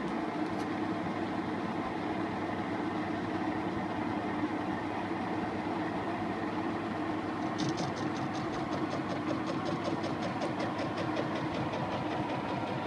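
Restored MS.125 metal lathe running steadily with a mechanical hum. About halfway through, a fast, even ticking joins in, as from its gearing or a turning part.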